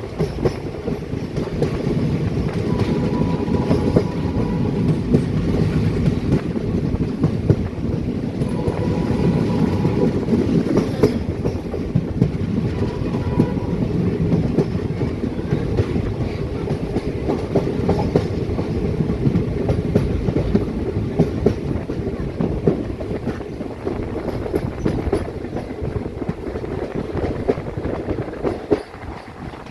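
Indian Railways express train running at speed, heard on board: steady rumble with wheels clicking over rail joints, and three short horn blasts early on.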